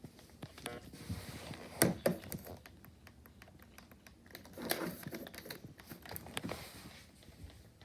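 Scattered small clicks and taps, with a louder knock about two seconds in and two brief rustling patches later on.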